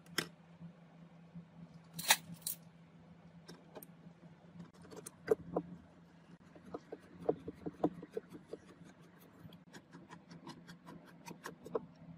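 A small metal control plate and its screws being handled and fitted onto a particle-board speaker cabinet: scattered clicks and taps, with a sharper knock about two seconds in. Near the end a run of quick light ticks comes as a screwdriver turns a screw into the plate, over a steady low hum.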